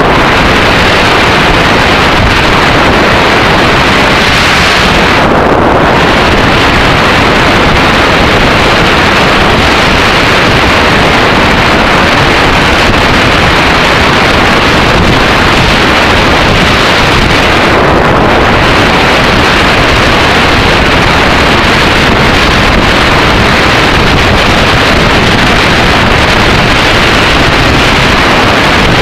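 Steady, loud wind rushing over the microphone of a camera on a moving Yamaha XT600E motorcycle, mixed with engine and road noise, easing briefly twice.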